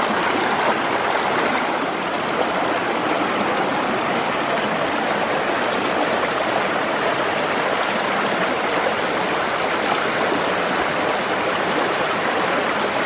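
A creek running high and fast after heavy rain: a steady, loud wash of flowing water.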